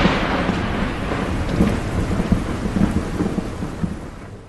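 Thunder rumbling and slowly dying away, the tail of a loud thunderclap, fading out near the end.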